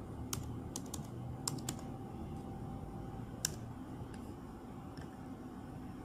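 Keystrokes on a MacBook Pro keyboard as a password is typed: about seven quick key clicks in the first two seconds, then one louder click a little past the middle and a few faint ones after.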